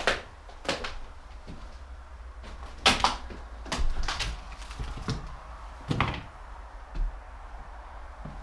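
Footsteps on an old, debris-strewn wooden floor: irregular knocks and clunks of boards and loose debris underfoot, roughly one every second.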